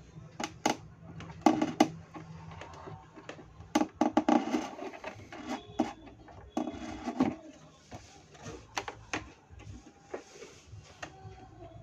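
Handling noise: scattered clicks, knocks and rustles as flat ribbon cables and their small plastic connectors are moved about and pulled against the cabinet's wooden panel.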